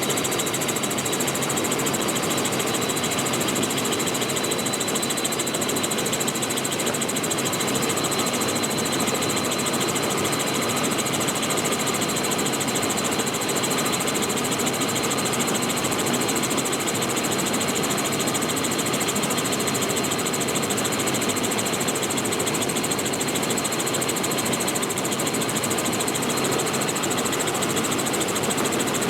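Robinson R44 helicopter in flight, heard from inside the cabin with the doors removed: its piston engine and rotors run at a steady, loud level, with a thin high whine over the noise.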